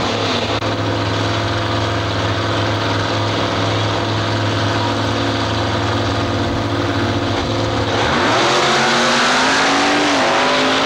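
Drag cars' engines held at steady high revs on the starting line. About eight seconds in they launch, and the engine note rises in pitch as they accelerate away.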